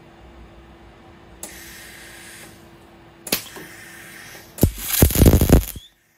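Inverter MIG welder laying a short weld on a steel gearbox crossmember. There is a brief hiss about a second and a half in and a sharp click near the middle, then about a second of loud crackling arc near the end, over a steady low hum.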